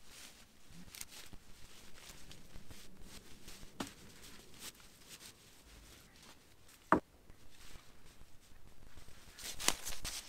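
Footsteps through dry leaf litter on a forest floor: faint scattered rustling with a few sharp twig cracks, the loudest about seven seconds in.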